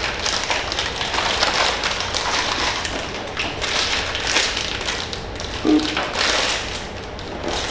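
Cardboard blind boxes and their inner packaging being handled and torn open: a steady run of crinkles, rustles and small taps.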